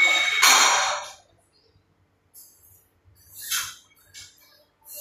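Heavy breathing of an athlete mid-workout: a long, loud breath in the first second, then a short, sharp breath about three and a half seconds in as he sets up at the barbell.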